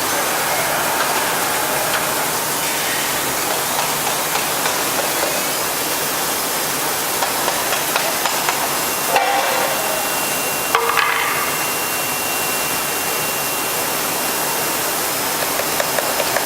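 Heian ER-531P CNC router at work: a steady, loud hissing run with scattered small ticks, and two brief louder noises about 9 and 11 seconds in.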